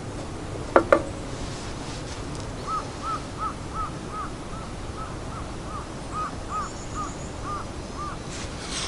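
A bird calling in a steady series of about thirteen short, arched notes, about three a second, starting a few seconds in. Two short, sharp sounds come about a second in.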